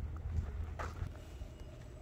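Footsteps on a packed dirt and gravel courtyard, a few short crunching steps, over a low rumble.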